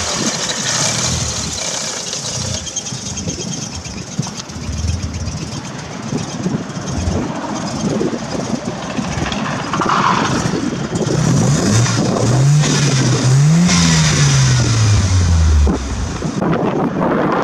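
1985 Mazda RX-7's 12A two-rotor rotary engine running, revved several times in the second half, the pitch rising and falling.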